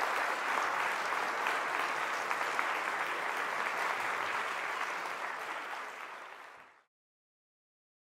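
Concert hall audience applauding steadily, fading away about six seconds in and then cutting off abruptly.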